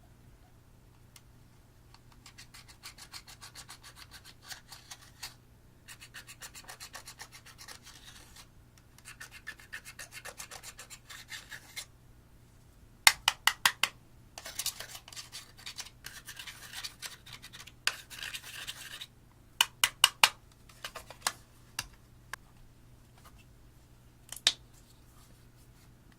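Fast, repeated scraping strokes of a small tool on a hard surface, in bursts of a few seconds each, then louder, sharper clicks and scrapes in the second half, with one last sharp click near the end.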